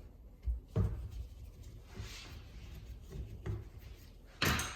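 A Phillips screwdriver backs the screws out of an aluminum motorcycle carburetor's top cap, with faint scraping and a few light knocks as the small parts and tool are handled. The loudest knock comes near the end.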